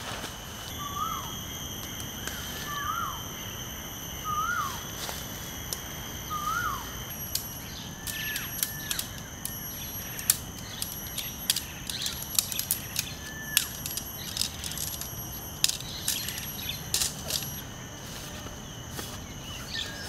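Rainforest birds calling, a short whistle that rises and falls repeated four times in the first seven seconds and then a few higher calls, over a steady high-pitched insect drone. From about eight seconds on come sharp clicks, knocks and rustling as the tent poles and fabric are folded and packed away.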